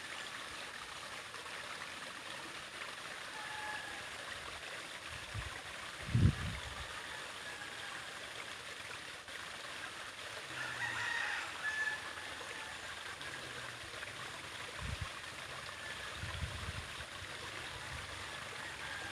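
Babbling brook: water rippling steadily over stones, with a few short bird calls scattered through it and several brief low bumps, the loudest about six seconds in.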